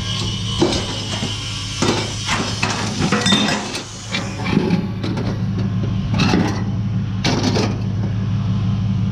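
Metal scrap clanking and knocking as it is handled, several separate strikes, over the steady hum of an idling vehicle engine.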